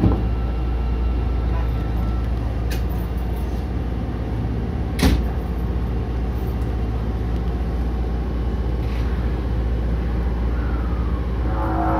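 Osaka Metro Sennichimae Line subway train running, heard from inside the front car: a steady low rumble with one sharp knock about five seconds in and a few lighter clicks. Near the end a higher sound with several steady tones joins the rumble.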